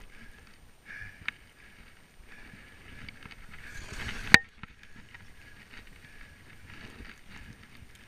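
Skis sliding through deep powder snow, a soft hiss that swells about four seconds in and ends in a sharp click, the loudest sound; a fainter click comes about a second in.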